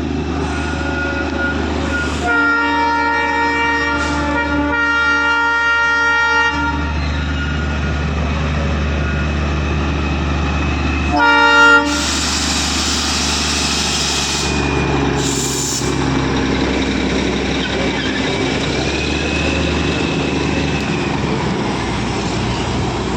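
Darjeeling Himalayan Railway toy train sounding its horn twice over a steady low running rumble: a long blast of about four seconds, then a short one about eleven seconds in. A loud hiss follows the second blast.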